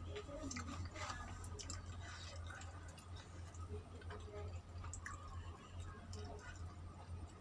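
Faint eating sounds: fingers mixing rice on a plate and chewing, with scattered small clicks, over a steady low hum.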